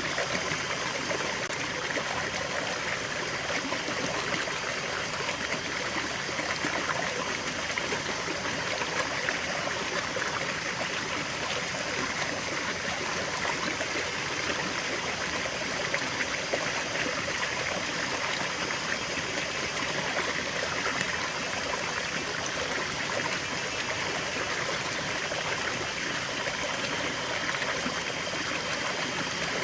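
Small stream flowing and trickling over stones, a steady even rush of water.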